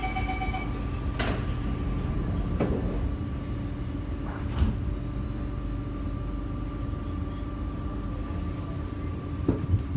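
Door-closing warning beeps on a Kawasaki & Nippon Sharyo C751B metro train, then its sliding doors closing with a knock about a second in and another soon after. A steady electrical hum runs underneath, and a sharper knock comes about four and a half seconds in.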